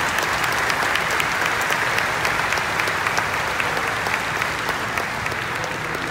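Crowd applauding: dense, sustained clapping from a large seated audience, starting to ease off near the end.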